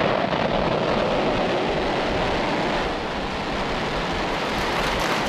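Loud, steady roar of a SpaceX Falcon 9 rocket's nine Merlin first-stage engines at liftoff, as the rocket clears the pad and climbs.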